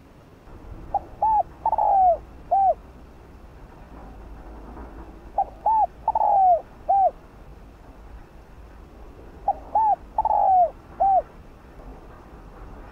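Spotted dove cooing: three song phrases about four seconds apart, each a short run of four or five hooting notes with one longer, falling note among them.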